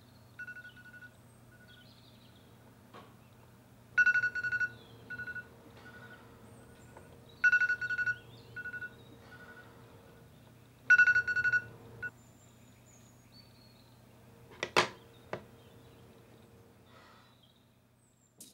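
Smartphone alarm going off on a bedside table: a loud electronic chirp every three to four seconds, each followed by a run of fainter pips, until it stops about twelve seconds in. A sharp knock follows a few seconds later.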